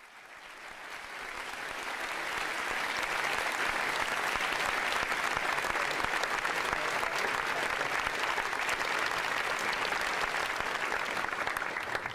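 Large seated audience applauding in a hall: dense, steady clapping that swells up over the first couple of seconds and dies down near the end.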